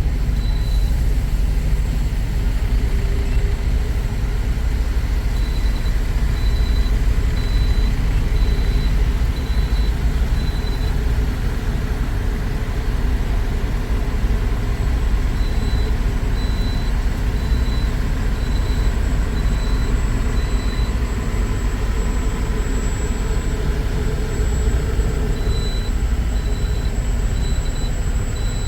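Semi truck cab while driving: steady engine and road rumble, with the turn-signal indicator beeping about once every three quarters of a second in several stretches that start and stop.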